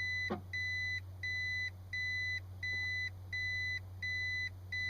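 Toyota Prius Gen II reverse warning beeper sounding in the cabin: a steady train of short, even beeps, about one and a half a second, over a steady low hum.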